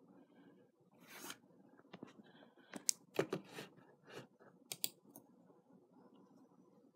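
Irregular sharp clicks and scratchy rustles, a short noisy scrape about a second in followed by a dozen or so scattered clicks, the loudest near the middle, over faint background hiss.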